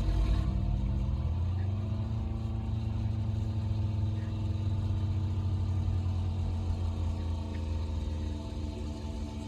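Novation Peak synthesizer playing a dark, low sustained drone with several steady overtones above it. It swells in at the start and the low end eases off near the end.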